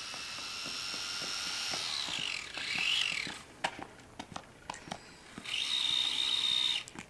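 Small electric motor of an RC truck whining, its pitch dipping and rising again just before it stops about three seconds in. A few light clicks and knocks follow, then the motor whines steadily again for about a second and a half near the end.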